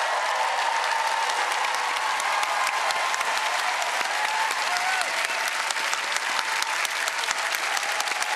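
Large studio audience applauding, dense steady clapping with a few scattered cheers and whoops.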